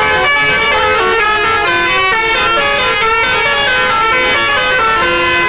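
Tour bus telolet basuri musical air horn playing a fast tune of short stepped notes, loud and without a break.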